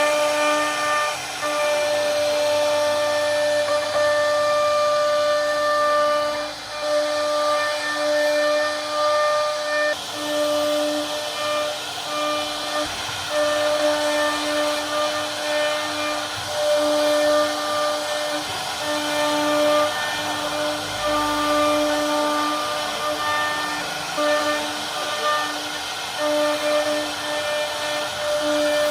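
CNC router spindle whining steadily as it carves wood, its tone breaking and returning every second or so as the cut changes, over a steady hiss.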